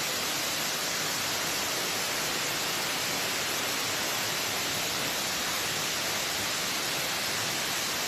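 Water of the Bigăr waterfall rushing over moss-covered travertine: a steady, even hiss with no change throughout.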